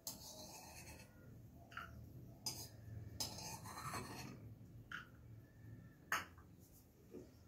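A handful of light clinks and scrapes of a spoon against small steel bowls and dishes, spread out over a faint low hum.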